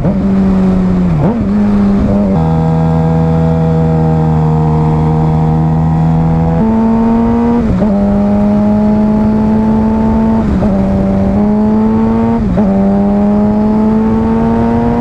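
Suzuki GSX-R 750 inline-four with an aftermarket M4 exhaust, heard from the rider's seat: it runs steadily for a few seconds, then accelerates with the revs climbing and dipping briefly at each of about four quick clutchless upshifts.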